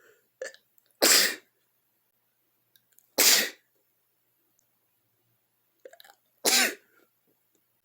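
A person sneezing three times, loud and sharp, about two to three seconds apart. Short, quieter sounds come just before the first and the last sneeze.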